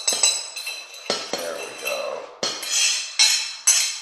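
Metal fork scraping and clinking against a plate, knocking a dry spice mix off it into a bowl: a run of sharp clinks with a short ring, about two a second.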